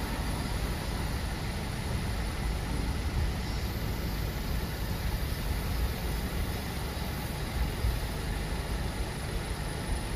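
Light truck's engine running at low speed, a steady low rumble as the truck idles and creeps forward.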